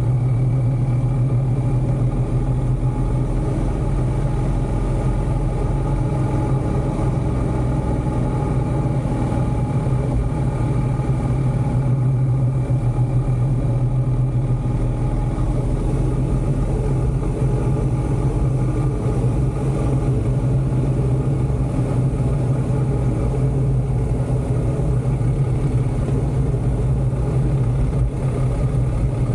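BMW motorcycle engine running steadily at an even cruising speed.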